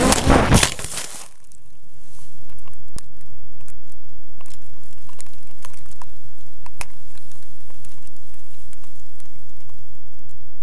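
DJI Phantom quadcopter falling after hitting a guy wire: loud tumbling rotor and wind noise with sharp knocks, which cuts off abruptly about a second in as it lands in the grass. Then faint scattered ticks and crackles over a low steady hum.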